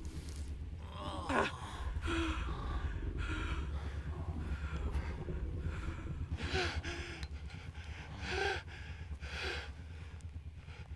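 A man gasping and panting raggedly in pain, with a short falling cry about a second in and a run of heavy breaths roughly a second apart, over a steady low rumble.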